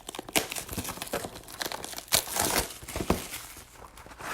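Plastic packaging crinkling and tearing in irregular bursts with sharp crackles as a sealed trading-card box is opened.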